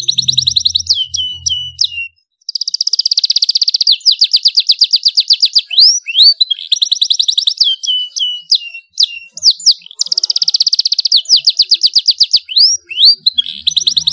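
Domestic canary singing loudly: fast trills and rolls of rapidly repeated high notes, in phrases broken by short gaps, with one brief silence about two seconds in.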